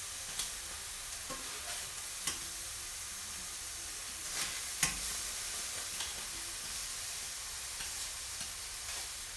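Lemons charring in a hot skillet, sizzling steadily, with a few sharp ticks; the loudest comes almost five seconds in.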